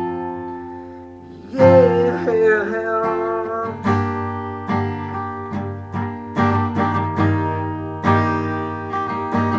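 Acoustic guitar strummed in chords, a fresh strum roughly every second, with one short sung "yeah" about two seconds in.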